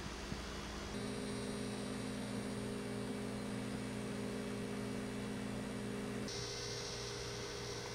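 Steady electrical hum, with no other sound. The mix of hum tones changes abruptly about a second in and again near the end.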